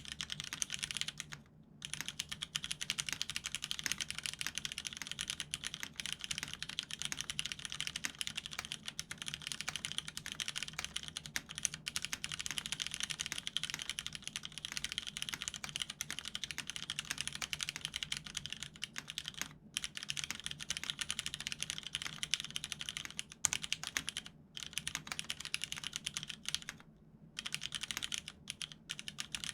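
Continuous fast typing on a custom mechanical keyboard with lubed vintage Cherry MX Brown tactile switches on an aluminium plate and Cherry dye-sub keycaps: a dense stream of keystroke clacks with a few short pauses.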